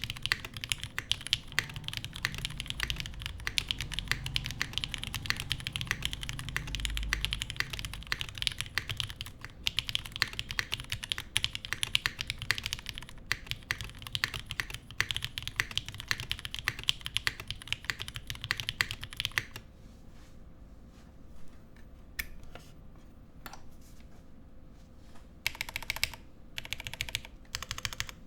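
Fast typing on a Geonworks F2-84 mechanical keyboard with lubed Cherry Nixie switches in an aluminium plate, gasket mounted, under GMK keycaps: a steady stream of keystroke clacks. About two-thirds of the way through the typing thins to a few scattered keystrokes, then picks up again near the end.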